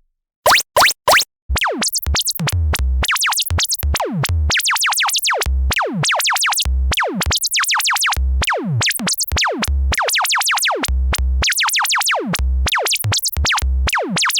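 Synthesized cartoon effect: rapid falling pitch sweeps, several a second, over a steady low drum-machine thump. Three short sweeps come first, then from about a second and a half in the sweeps and beat run on without a break.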